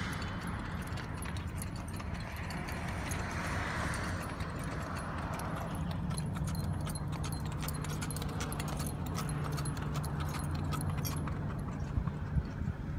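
Hooves of a ridden horse and a pack horse clopping at a walk on asphalt, with tack jingling, over passing traffic and a car engine idling. The clicks of hooves and tack are densest in the middle and die away near the end.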